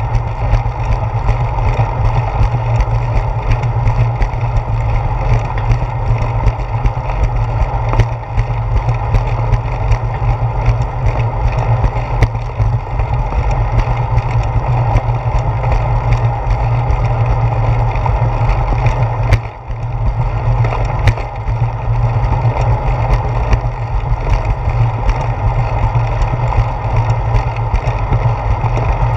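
Steady low rumble of wind and road vibration picked up by a handlebar-mounted GoPro Hero 4 as a bicycle rolls along a concrete path, with small ticks and knocks from the joints and cracks in the pavement. It briefly eases off about two-thirds of the way through.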